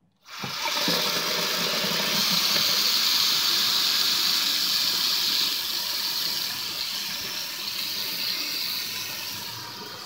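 Bathroom sink faucet running, its stream splashing onto a Rubik's cube in the basin. A steady rushing splash starts abruptly just after the start and gets a little quieter in the second half.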